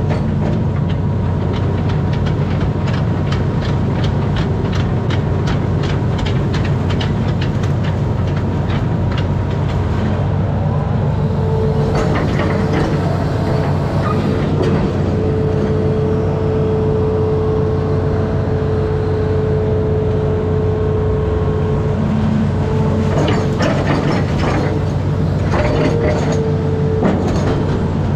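Amphibious excavator's diesel engine running steadily, with a hydraulic whine that rises in and drops out as the boom and bucket work. Spells of rapid clicking and clatter come over it, thickest in the first third and again near the end.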